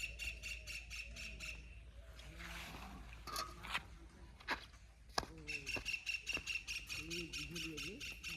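Outdoor rural ambience: a rapid, evenly repeated high chirping that stops a couple of seconds in and starts again past the middle, with a few sharp clicks and low voice-like sounds in the gap.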